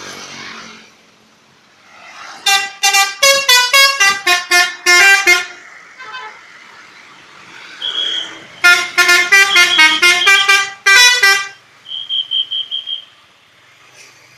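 Indonesian bus 'telolet' horn, a multi-trumpet air horn playing a tune. Two quick runs of loud notes step up and down in pitch, the first about two seconds in and the second a few seconds later. Short high beeps come between them, and a quick string of five beeps follows.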